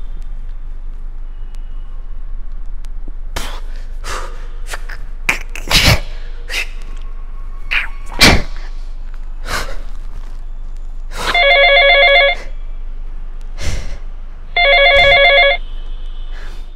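Mobile phone ringing twice, each ring about a second long with a warbling, multi-tone ringtone, about two seconds apart. Before the rings, a few short sharp sounds.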